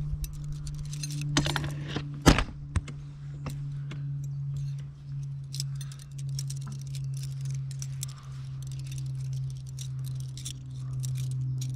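Metal tent pegs clinking against each other as they are counted out from hand to hand, a scattered run of light clicks and jangles over a steady low hum.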